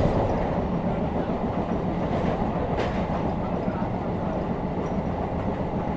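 Running noise of an electric suburban local train (EMU) heard from inside the coach at about 75 km/h and gathering speed: a steady rumble of wheels on rail, with a couple of light clicks about two and three seconds in.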